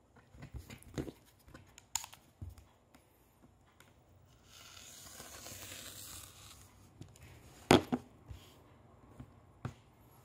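A rotary cutter drawn through a flat rubber band on a cutting mat, cutting a small angle at the band's end: a steady scraping hiss lasting about two seconds in the middle, among light clicks and knocks of the cutter and ruler being handled, and one sharp knock shortly after the cut.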